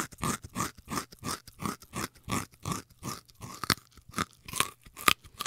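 Rabbits chewing and crunching leafy greens: a quick, even run of crisp bites, about three a second.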